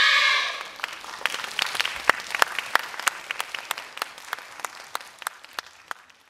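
Audience applauding as the music ends just after the start: distinct individual claps that thin out and fade away over several seconds.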